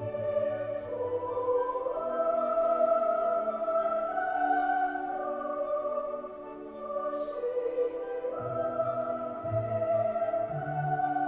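Background music: a slow melody of long held notes over a low bass line.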